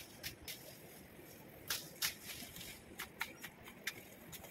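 Grass and leafy stems being cut by hand with a sickle: a faint, irregular string of sharp snicks and rustles, loudest about two seconds in.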